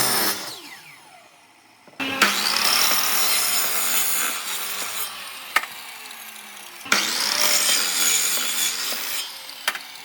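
A power tool working wood: first a motor winding down in falling pitch, then two abrupt cuts into stretches of the tool whining as it saws or grinds into wood, about 2 and 7 seconds in.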